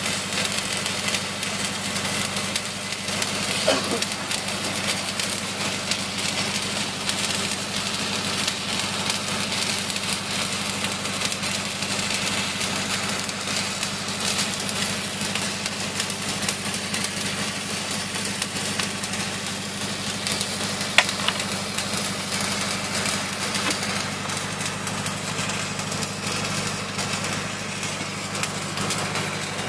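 Electric arc welding on a steel pipe repair sleeve, the arc crackling and hissing steadily, over the steady drone of an engine running at idle. A couple of sharper ticks stand out, about four seconds in and again about twenty-one seconds in.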